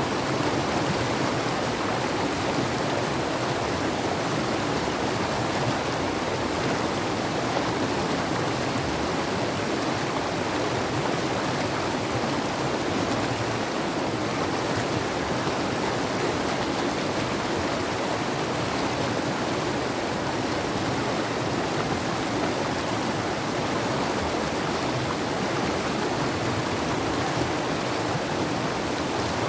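Fast mountain river running, a steady even rush of water.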